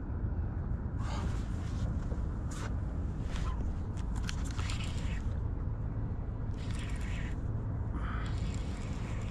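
Fishing reel being cranked in short spells of scratchy, clicking winding, about five times, over a steady low rumble of wind on the microphone.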